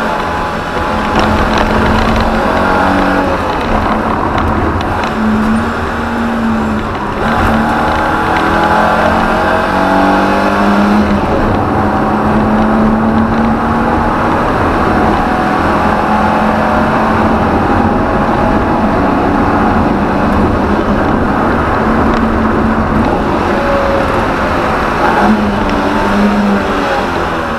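BMW E30 318i's M10B18 1.8-litre four-cylinder engine heard from inside the cabin, running hard under load with its pitch rising and falling as the car is driven, over road and wind noise. There is a brief dip in the engine note about seven seconds in.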